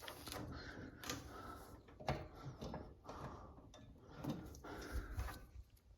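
Faint, scattered clicks and knocks of a vacuum's power plug and cord being fumbled at a wall outlet while trying to plug it in.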